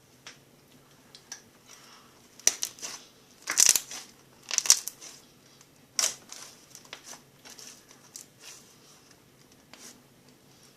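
Irregular close-up crackling and crunching clicks, loudest in a cluster about two to five seconds in and again about six seconds in, with smaller crackles after.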